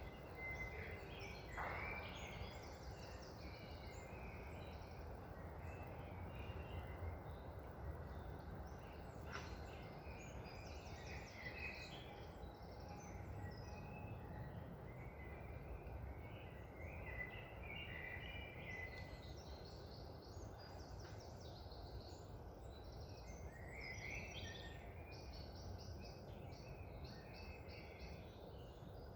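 Several songbirds chirping and twittering over a steady low rush of wind; the chirping gets busier in the second half.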